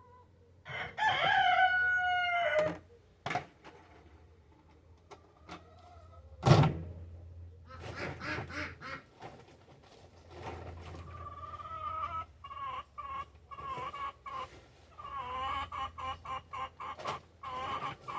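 A rooster crows once, a loud call of about two seconds near the start. It is followed by a single sharp thump and then a long run of short, repeated clucking calls.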